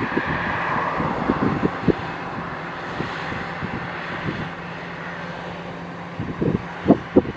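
Fendt 6335 C combine harvester running steadily with a constant engine hum, overlaid by irregular low thumps that grow louder near the end.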